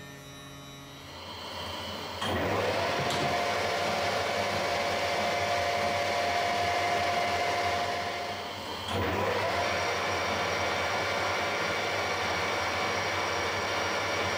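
Harrison 140 metal lathe starting up about two seconds in and running steadily with a steady whine. It runs down around eight seconds and starts again about a second later, running steadily while a phosphor bronze bar turns in the chuck.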